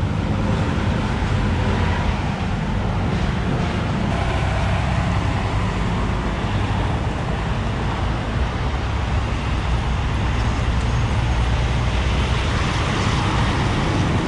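Steady roadside highway traffic noise: a constant rumble of passing vehicles.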